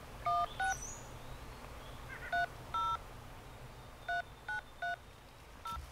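Touch-tone phone keypad beeps: a tag or harvest authorization number being keyed into an automated game check-in phone line. About eight short two-note tones come in uneven groups of two and three.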